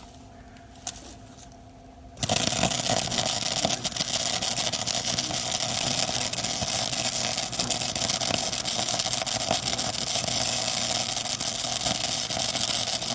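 MIG welder laying a bead with the wire speed turned all the way up: a loud, steady crackling hiss that starts about two seconds in, with the wire feed set almost too high.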